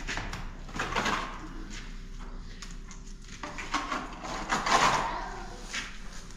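Plastering trowel scraping wet plaster across a concrete-block wall in a few long strokes, the loudest about four to five seconds in.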